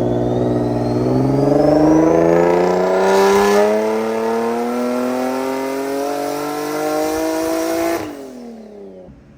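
Turbocharged Infiniti G35 coupe's V6 engine making a full-throttle pull under tune, its note climbing steadily in pitch with a rising turbo whistle and hiss. About eight seconds in the throttle shuts and the revs fall away.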